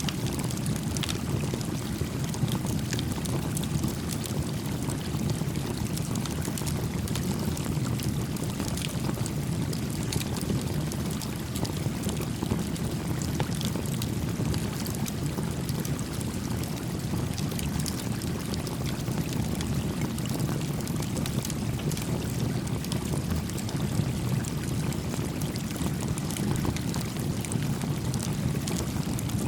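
A small creek flowing steadily, a low, even rush of water, with the scattered crackle and pop of a small wood campfire.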